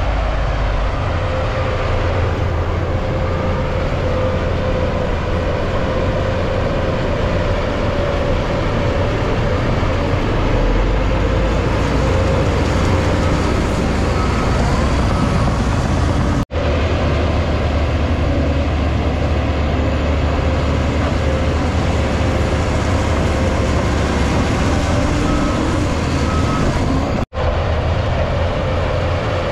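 Crawler bulldozer's diesel engine running steadily under load as it pushes soil, a heavy low rumble with a steady mid-pitched engine note. The sound cuts out for an instant twice, a little past halfway and near the end.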